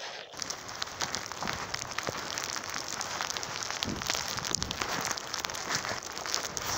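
Icy snow falling with a steady fine crackling patter on the snow-covered ground, with a few low thumps about four seconds in.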